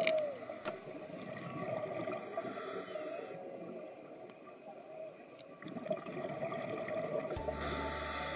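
Humpback whale song heard underwater: long calls that bend up and down in pitch. Three bursts of hissing bubbles from a scuba diver's exhalations break in, about a second long each.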